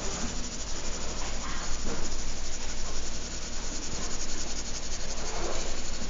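Blue coloured pencil shading on paper: a steady, scratchy rubbing of quick back-and-forth strokes.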